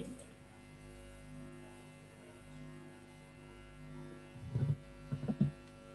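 Steady electrical mains hum with several faint steady tones, heard over the call audio. A few brief, low, muffled sounds come up about four and a half to five and a half seconds in.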